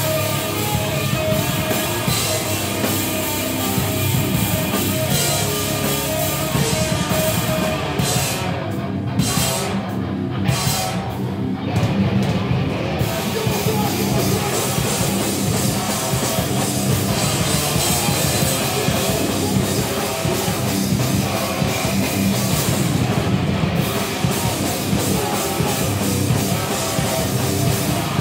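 A live band playing loud, heavy rock: distorted guitar, bass and a drum kit with cymbals, without a break.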